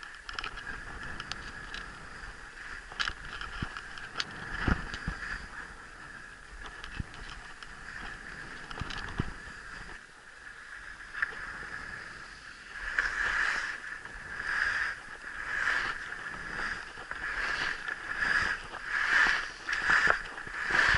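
Scattered clicks and knocks, then from about 13 s in a regular swishing stride about every three quarters of a second: a person's footsteps or strides while moving along.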